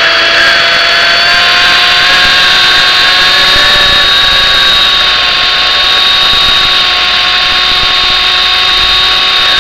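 MJX F45 radio-controlled helicopter's electric motor and rotor running steadily at flight speed after spooling up: a loud, even whine made of several steady tones.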